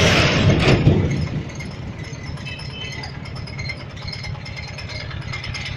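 A vehicle engine running steadily under light metallic rattling as the loaded mill cart rolls along the road. A passing truck makes a loud rush in the first second.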